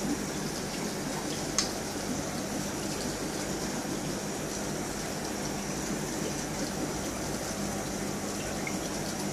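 Steady bubbling and water splashing from an air-driven aquarium sponge filter, with a faint low hum underneath. A single sharp click about a second and a half in.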